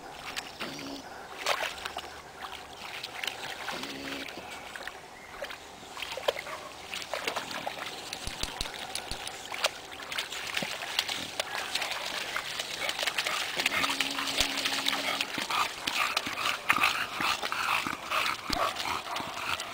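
Two bulldogs moving through a shallow muddy stream and wet grass, with splashing, rustling and dog noises.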